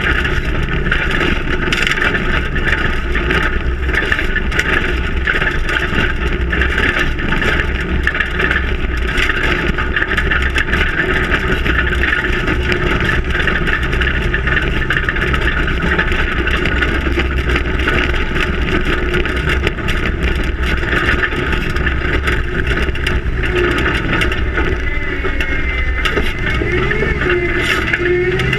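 Long-travel Ford Raptor prerunner truck driving over desert dirt, heard from a camera mounted on it: steady engine and road noise with many small knocks and rattles. Near the end the engine pitch rises and falls a few times.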